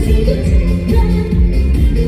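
Trot music at a live outdoor stage show, played loud over the PA with a steady thumping beat.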